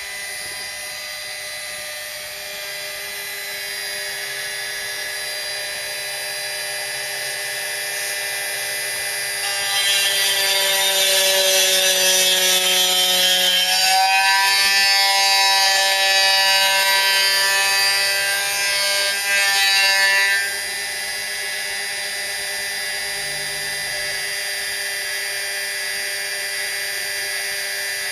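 Proxxon MF70 mini mill spindle running with a steady whine. From about ten seconds in until about twenty, it gets louder, with a hissing cutting noise and its pitch sagging and wavering as the cutter works through 1 mm carbon fibre sheet. It then settles back to a steady whine.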